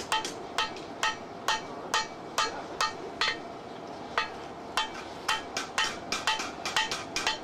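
Hammer blows forging a red-hot steel bar on an anvil, a run of sharp, ringing strikes at about two to three a second. There is a short lull about three seconds in, then the blows come quicker.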